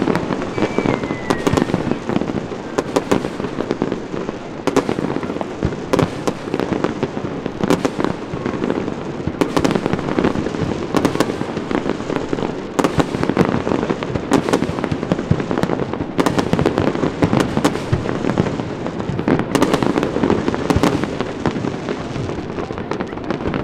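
Fireworks display: a dense, continuous barrage of crackling and popping shells, with sharper bangs standing out every second or so.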